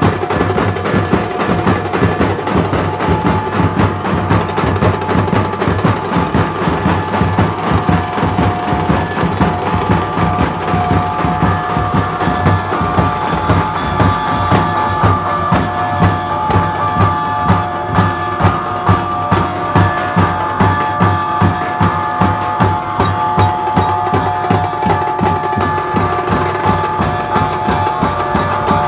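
Dhol-tasha street drumming: large barrel dhol drums beaten with a mallet and a stick, snare drums and hand cymbals playing a fast, driving rhythm.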